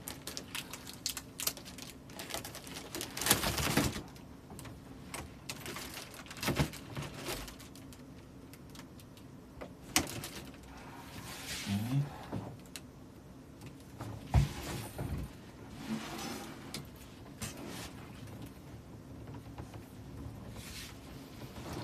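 Plastic and paper gift wrapping rustling and crinkling as it is handled, with scattered knocks and clicks; the densest rustle is about three seconds in. A short murmured voice comes about twelve seconds in.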